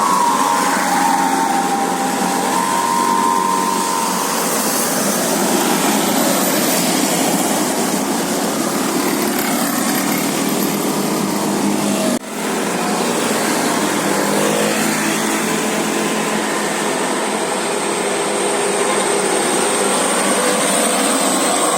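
Bus engine and road noise running steadily, with a short break about twelve seconds in where the sound drops and picks up again.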